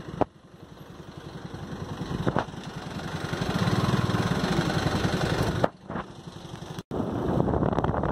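Motorcycle engine running as the bike rides along, getting louder over the first few seconds as it picks up speed, then holding steady, with a short dip about six seconds in.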